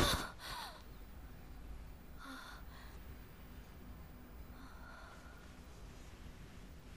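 A woman's sharp gasp as she startles awake from a nightmare, with a second, shorter breath half a second later, then only faint background.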